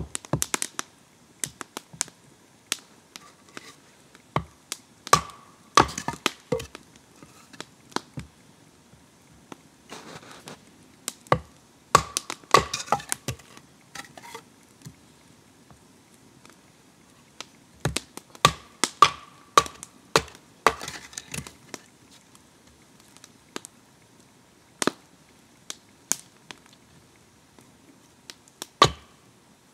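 Firewood being broken up for a campfire: sharp wooden cracks and knocks in irregular clusters, with pauses of a few seconds between them.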